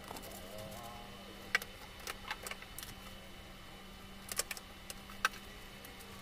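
Light clicks and taps of plastic toiletry bottles and a small plastic tub being handled and set down on a tabletop, a handful of scattered knocks, the sharpest about a second and a half in and about five seconds in, over a low steady hum.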